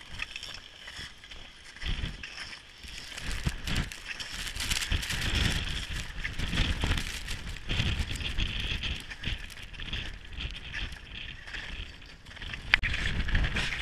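Strong wind buffeting the microphone in gusts, with footsteps crunching in snow as the climbers walk uphill.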